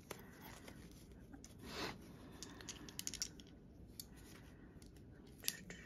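Faint handling sounds of small items and packaging: scattered light clicks, a brief rustle just under two seconds in, and two sharper clicks near the end.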